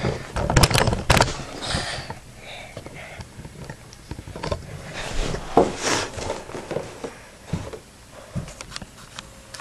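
Sharp plastic clicks from a Beyblade XTS top and its launcher being handled, with a quick cluster of clicks about a second in, then scattered lighter clicks and rustles.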